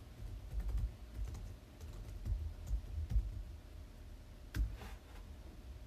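Typing on a computer keyboard: irregular key clicks over soft low thumps, with one sharper click about three-quarters of the way through.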